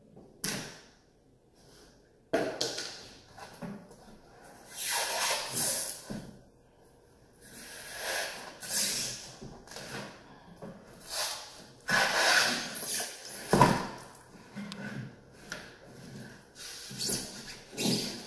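Irregular bursts of scraping and rustling as a sticky-backed panel is pried and peeled off a wall by hand, with one sharp knock about two-thirds of the way through.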